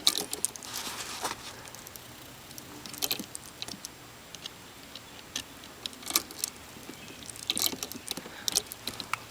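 Scattered light metallic clicks and small rattles as the parts of a Saturn SL2's manual gearshift linkage are handled and an Allen head screw is fitted into the linkage ball. A few clusters of clicks come about three seconds in and again in the last third.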